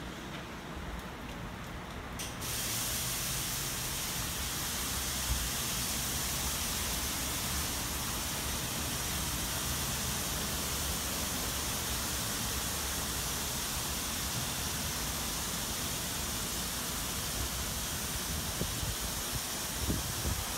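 Water spraying from the nozzles of a Ryko SoftGloss MAXX rollover car wash, a steady hiss that comes on about two seconds in.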